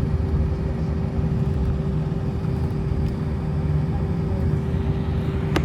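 Airbus A321 airliner rumbling steadily on the ground, with a constant drone over the low noise and a single sharp click near the end.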